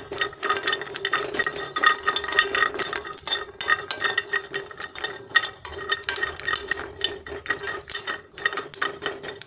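A metal spoon stirring almonds in a dry stainless steel kadhai, with rapid irregular scraping and clinking against the pan. The almonds rattle and crackle lightly as they dry-roast without ghee. A steady hum runs underneath.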